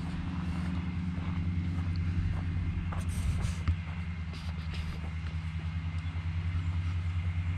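An engine running steadily at an even speed, low and droning with a slight regular pulsing.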